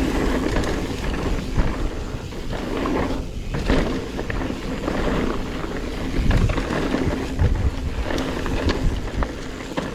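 Mountain bike, a Specialized Stumpjumper Evo Alloy, riding down a trail: a steady low rumble of wind on the microphone and tyres on the ground, broken by frequent sharp knocks and rattles as the bike goes over bumps.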